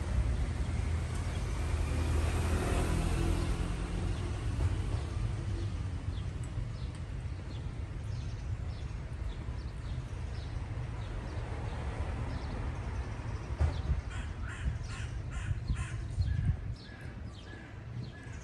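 Outdoor traffic rumble, with a vehicle passing in the first few seconds; from about fourteen seconds in, a bird calls over and over in short, quick notes.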